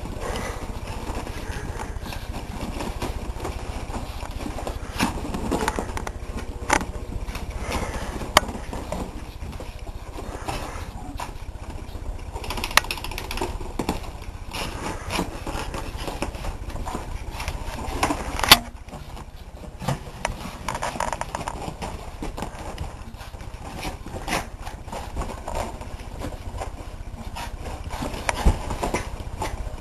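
A dog running around on a couch: scattered scrapes, knocks and clicks from its scrambling on the cushions over a steady low rumble, with one sharp click about two-thirds of the way through.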